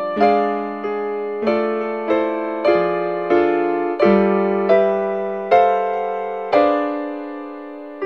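Background music: a slow solo piano playing soft chords, one struck about every two-thirds of a second, each ringing and fading. Near the end a single chord is left to ring out longer.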